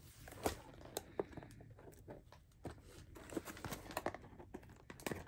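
Handling noise from a long cardboard diamond-painting kit box: scattered light taps, scrapes and crinkles as fingers work at its end to free contents that are stuck inside.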